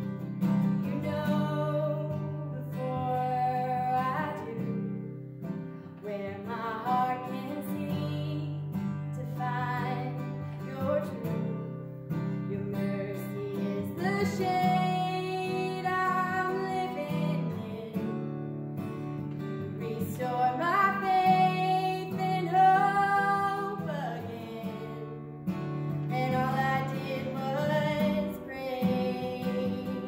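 A woman singing a worship song to strummed acoustic guitar, in sung phrases a few seconds long with short breaks between them.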